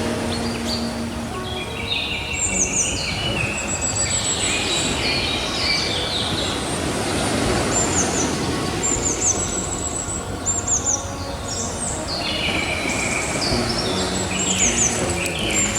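Birds chirping and trilling over and over, many short calls overlapping, over a steady wash of ocean surf.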